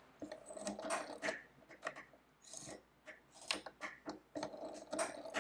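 Brass mechanism of a Burkhardt Arithmometer, a Thomas-type mechanical calculator, being worked by hand: faint, irregular metallic clicks and rubbing.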